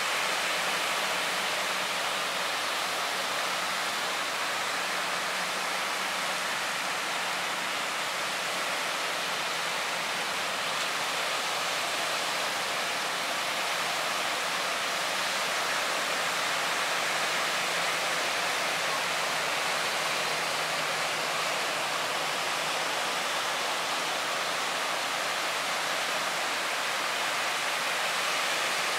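Surf washing onto a sandy beach: a steady, even hiss of breaking waves with no pauses.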